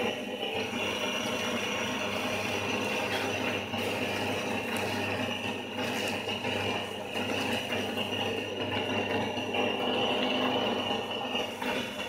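A meat-grinder-type feed pellet mill running steadily with a constant hum and no pauses, grinding feed into pellets.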